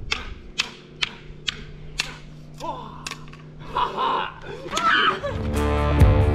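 Wooden sticks clacking together about twice a second in a mock sword fight, followed by a couple of shouts. Rock music with guitar and drums comes in near the end.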